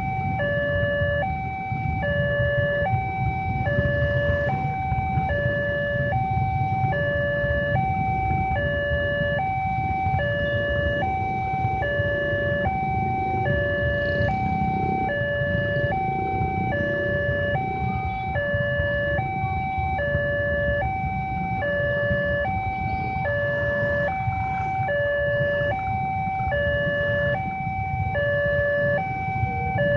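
Railway level-crossing warning alarm from the loudspeaker on the signal post, sounding a steady two-tone electronic 'teng-tong': high and low notes alternating at an even pace, a sign that a train is approaching and the barrier is closed. Beneath it is the low rumble of idling motorcycles waiting at the barrier.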